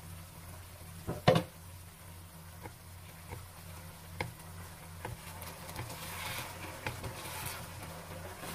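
Wooden spatula tapping and scraping against a nonstick wok while stirring bok choy in simmering sauce, with a sizzle that grows louder in the second half. One louder knock comes about a second in, over a steady low hum.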